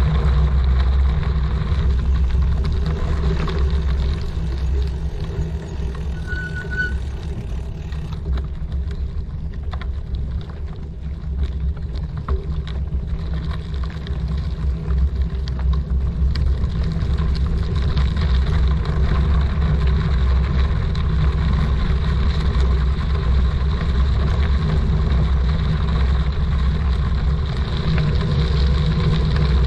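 Steady low rumble of wind buffeting the microphone and tyre noise while riding a bicycle, easing for a few seconds about a third of the way in. A short high chirp sounds once, about six seconds in.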